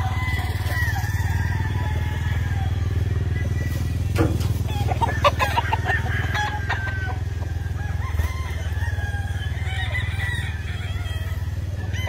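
Gamefowl roosters crowing, with a run of short clucks about halfway through, over a steady low hum.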